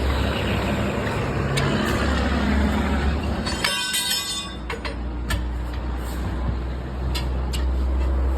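A heavy engine running with a steady low drone, with a few sharp clicks in the second half.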